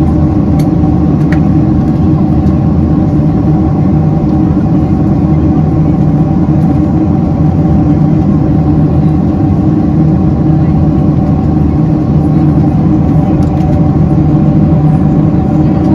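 Steady cabin drone of a Boeing 767-300ER in flight: its General Electric CF6 turbofans hum in several steady tones over a loud, even rush of air.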